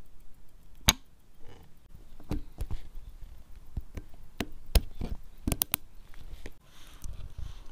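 Small, sharp metal clicks and taps, about ten at uneven spacing, as a fine pointed tool works at the lug end of an Omega De Ville's steel bracelet to fit it to the case. The tool, the bracelet links and the case knock against each other.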